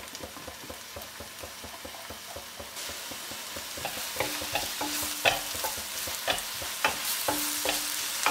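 Finely chopped onion sizzling in butter in a nonstick frying pan, the sizzle growing louder about three seconds in. From about four seconds in, a wooden spatula scrapes and taps against the pan as the onion is stirred and spread.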